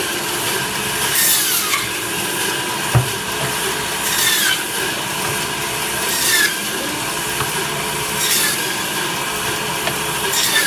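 Electric meat band saw running steadily while cutting one-inch slices from a beef shank, through meat and bone, with a rasping hiss about every two seconds as each cut goes through. A dull thump about three seconds in.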